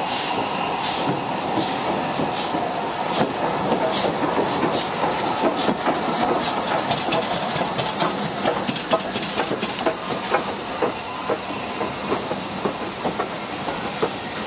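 LMS Stanier 8F steam locomotive No. 48624 passing with a train of coaches, steam hissing. From about four seconds in the clicking and clatter of coach wheels over rail joints grows thicker as the carriages run by.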